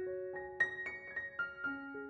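Background piano music: a gentle melody of single notes struck one after another, a few per second.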